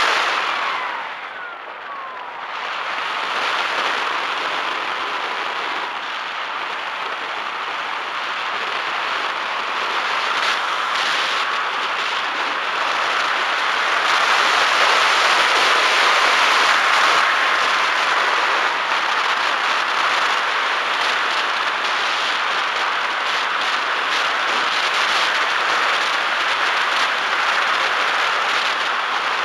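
Wind rushing past a Bixler RC plane's onboard camera, with the faint whine of its electric motor and propeller. About a second in the motor's pitch falls and the sound dips, then the wind noise builds again and stays steady.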